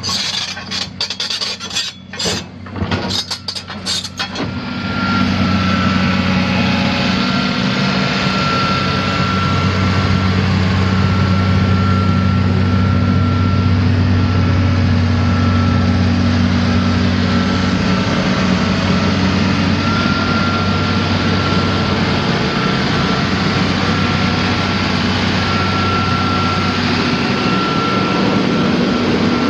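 Irregular scraping and knocking for the first few seconds, then the Doosan DX300LC excavator's diesel engine comes in loud and runs steadily with a thin high whine on top.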